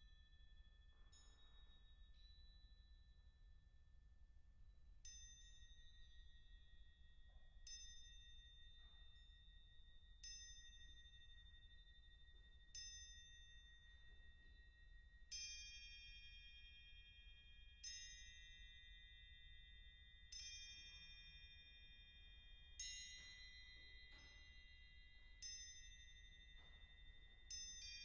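Quiet, sparse high bell-like notes of struck metal percussion, often two or three together, each left to ring on, recurring about every two and a half seconds.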